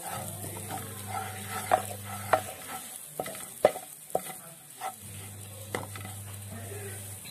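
A wooden spatula stirring and scraping spiced besan paste frying in oil in a non-stick pan, with repeated sharp clacks of the spatula on the pan over a steady sizzle. This is the gram flour being roasted in the masala so it will not taste raw. A low hum sounds for the first two and a half seconds and again from about five seconds in.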